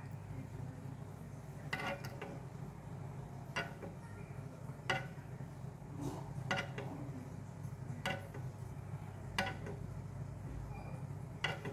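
Metal spoon clinking lightly against a nonstick frying pan as it scoops and pours hot sugar syrup over skewered grapes, about nine separate taps at uneven intervals, over a steady low hum.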